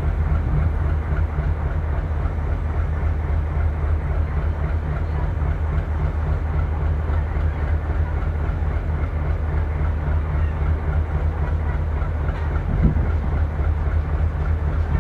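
Diesel locomotive engine idling, a steady low rumble.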